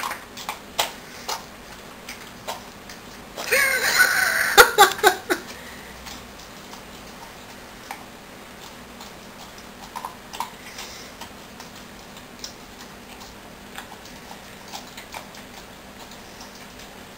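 A dog licking and smacking at sticky peanut butter, making wet tongue-and-mouth clicks at irregular intervals. About three and a half seconds in there is a louder, pitched sound lasting about two seconds.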